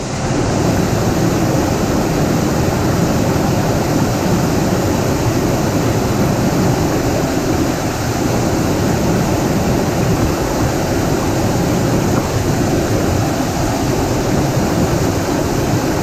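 Small waterfall rushing over a rock ledge into a pool: a steady, loud wash of churning white water, heard from just above the water surface.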